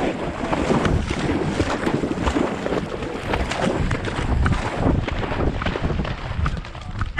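A dog splashing through shallow pond water and scrambling onto a muddy bank, heard from a GoPro strapped to its back: a steady rush of water and wind noise on the microphone, with frequent small knocks from the camera mount.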